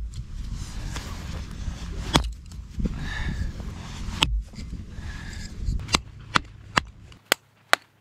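Wooden baton knocking on the back of a hatchet blade set in a small piece of wood, splitting kindling: single sharp knocks a couple of seconds apart, then a faster run of knocks about two or three a second in the second half. A low rumble lies under the first half and stops shortly before the end.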